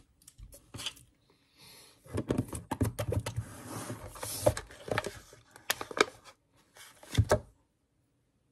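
Crinkling and rustling of plastic food packaging being handled, with a run of sharp clicks and taps, starting about two seconds in and stopping shortly before the end.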